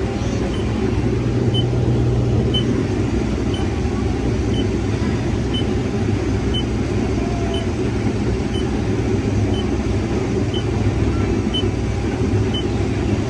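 Case IH 2388 combine running steadily at harvest, a deep even drone, with a short high-pitched beep repeating a little faster than once a second.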